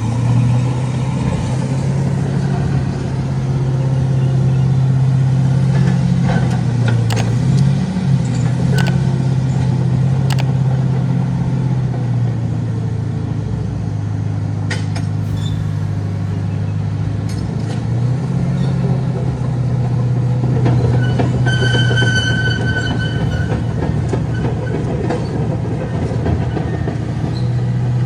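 Bulldozer's diesel engine running steadily while it works, its pitch shifting now and then, with sharp metallic knocks and clanks at intervals and a brief high squeal about three-quarters of the way through.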